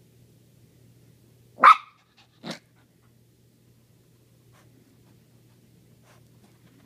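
Maltese puppy giving two short, high barks less than a second apart, the first loud and the second quieter.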